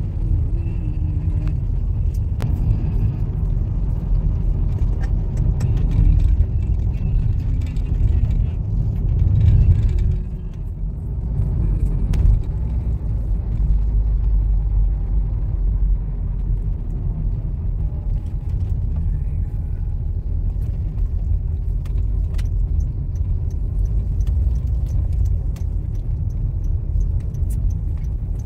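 Road noise inside a moving car's cabin: a steady low rumble of engine and tyres, dipping briefly about ten seconds in.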